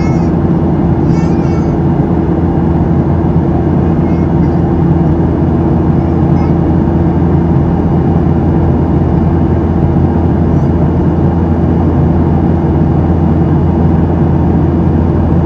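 Steady cabin noise of a Boeing 737-700 in flight: the CFM56-7B engines' buzz and the airflow rush, with a few steady low tones that do not change.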